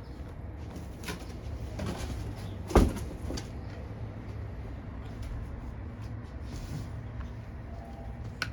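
A few light knocks and clatters, with one loud thump about three seconds in, over a steady low hum.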